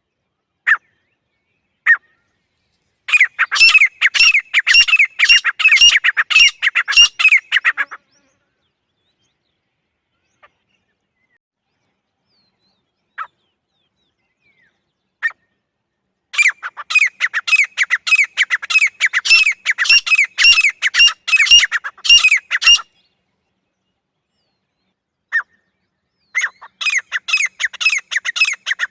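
Female grey francolin calling: three bouts of rapid, evenly repeated high notes, each several seconds long, with a few single notes in the quiet pauses between them.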